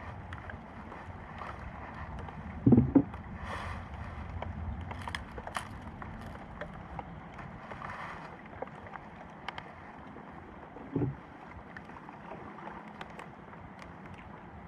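Steady rain-and-wind hiss with scattered light taps, and two dull knocks against a small boat's hull: a double knock about three seconds in and a single one near eleven seconds.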